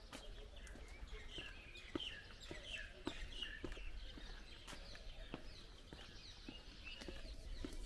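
Birds chirping in a run of short falling calls, over the walker's regular footsteps, about one and a half steps a second.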